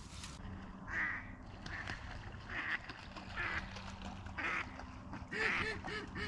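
A duck quacking in a series of short calls, about one a second, getting louder in the last couple of seconds.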